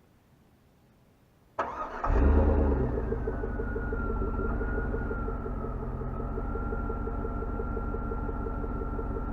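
2003 Chevy Suburban's Vortec V8, at about 151,000 miles, heard from inside the cab: the starter cranks briefly about a second and a half in, the engine catches with a short loud flare and then settles into a steady idle. A seat-belt warning chime sounds over the idle.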